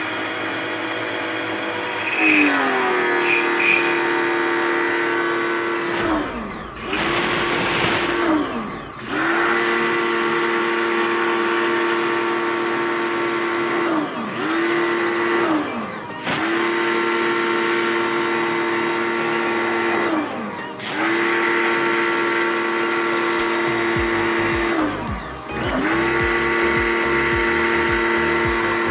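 Electric pressure washer running with a steady motor whine and spray hiss while flushing an air-conditioner evaporator coil; about six times the whine sags in pitch and climbs back up as the trigger is released and squeezed again.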